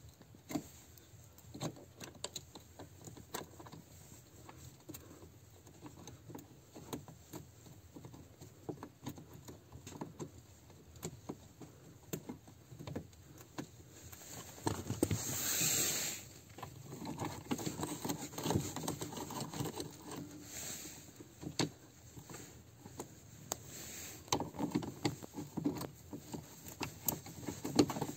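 Scattered light clicks, taps and small metal rattles of parts and hand tools being handled while a car door check strap is fitted into the door, with a brief louder rustling hiss about halfway through.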